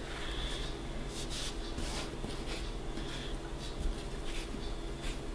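Fingers brushing and scraping through flour on a countertop while working under the edges of soft, wet ciabatta dough: a series of faint, irregular rustles.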